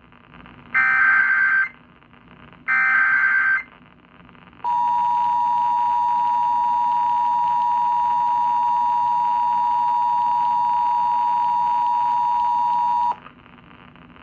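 Emergency Alert System activation over AM radio: two short, harsh data bursts of the SAME header, about a second each, then the EAS two-tone attention signal, two steady tones sounding together for about eight seconds before cutting off abruptly. It signals the start of a broadcast emergency alert, here a severe thunderstorm warning.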